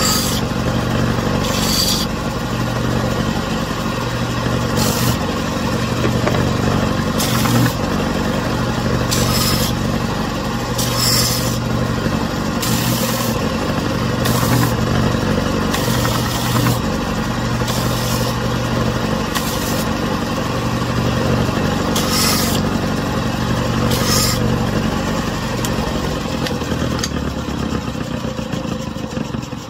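Belt sander running steadily with a constant motor hum, with short hissing surges every second or two as wooden blocks are pressed against the abrasive belt to round off their edges. The sound starts to die away near the end.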